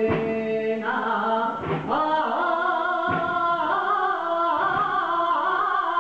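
A man singing a saeta, the Andalusian flamenco song of Holy Week, in long held notes that waver and bend in pitch, breaking briefly between phrases.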